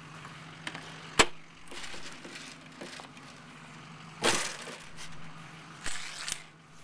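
The travel trailer's entry door and screen door being handled. A sharp latch click comes about a second in, then two short rattling scrapes, over a steady low hum.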